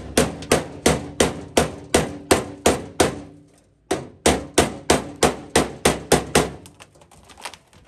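Body hammer striking the sheet-steel body panel of a 1950 Mercury to work out a dent. It strikes steadily about three times a second, each blow with a short metallic ring. There is a brief pause a little before halfway, and near the end the blows turn to lighter, quicker taps.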